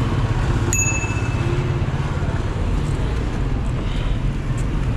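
Steady low rumble of street traffic around a moving bicycle, with one bright metallic ding less than a second in that rings briefly.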